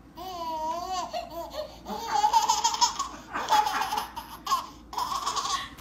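A baby squealing in a high, wavering voice, then laughing in three or four bursts.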